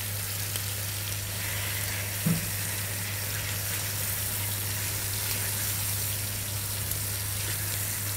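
Chicken breast pieces sizzling as they fry in a little oil in a nonstick pan, over a steady low hum. There is one short knock a little over two seconds in.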